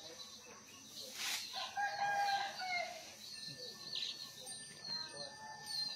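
A rooster crowing once, its long held note about two seconds in, with small birds chirping.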